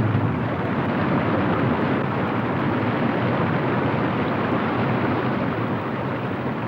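Steady rushing of river whitewater over rapids.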